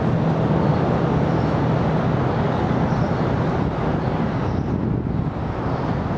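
Steady downtown city traffic noise with a constant low hum.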